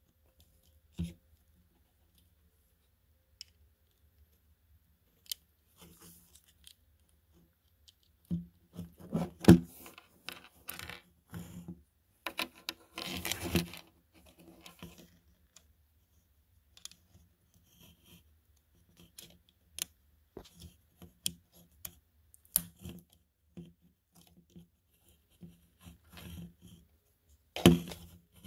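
Handling noise close to the microphone: scattered clicks, scrapes and rustles of plastic parts as hands work a plastic transforming robot action figure, with a few denser bursts of scraping along the way.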